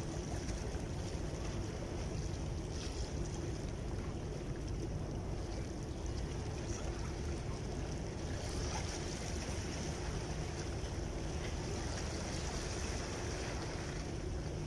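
Steady seaside ambience: low wind rumble on the microphone and sea noise, with a faint steady hum underneath.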